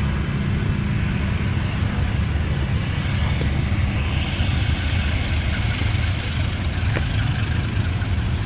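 Diesel locomotive engine running, a steady deep rumble.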